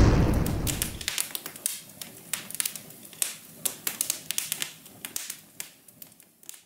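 Intro sound effect: the tail of an explosion dies away over the first second, then scattered sharp crackles of sparks and embers, thinning out and stopping just before the end.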